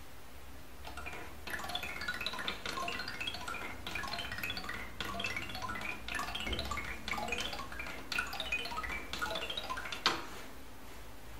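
A wooden ball with a bell inside rolling down the spiral of thin wooden rods of a Miura Kiji 'Sazanami' toy, tapping rod after rod in quick, xylophone-like wooden tones with a light tinkle. About ten seconds in it drops into the round wooden base with a single sharp knock.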